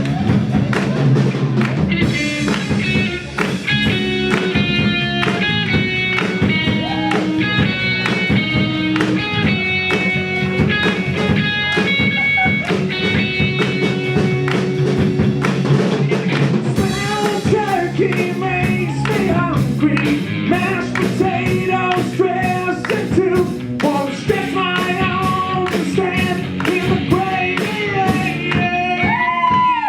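A band playing a blues-rock song with drums and guitar; singing comes in about halfway through.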